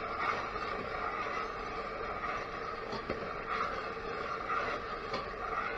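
Seasonings frying in oil in a stainless steel pot, a low steady sizzle with a few faint ticks of a spoon stirring against the pot.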